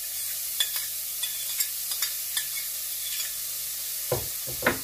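Chopped onion sizzling steadily in a little olive oil in a stainless steel pot, with a fork clicking lightly a few times as it scrapes and stirs. A couple of low thumps near the end.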